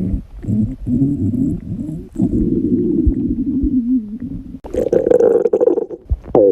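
Stomach growling: long, drawn-out rumbles with a wavering pitch, broken by short pauses, turning louder and higher about four and a half seconds in.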